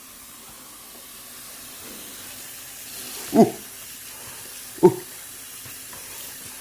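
Kitchen tap running cold water onto egg noodles in a stainless steel colander, with hands turning the noodles under the stream, to rinse them cold so they stop cooking. Two brief pitched sounds stand out, a little past halfway and about a second and a half later.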